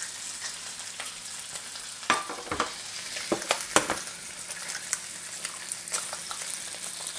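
Bacon sizzling steadily in a frying pan, with a series of sharp knocks and clicks as a second frying pan is set down on the glass-ceramic hob and an egg is cracked and dropped into its hot oil.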